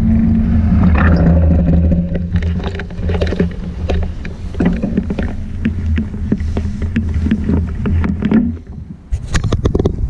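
Steady low rumble of wind and rolling noise on a moving action camera, with scattered clicks and rattles; the rumble dies away about nine seconds in as the camera comes to a stop, followed by a quick run of clicks.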